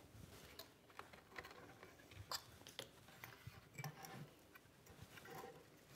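Near silence with faint, scattered clicks and light taps as hands lift a loudspeaker's trim ring away and pull the woofer driver out of its wooden cabinet.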